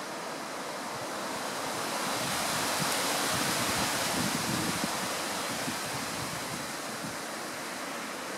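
Wind: a steady rushing noise that swells for a few seconds in the middle and eases back, with low rumbling buffeting on the microphone at its height.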